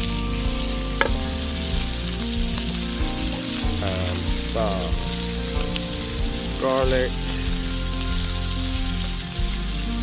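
Beef burger patty sizzling steadily in hot fat in a frying pan over a campfire.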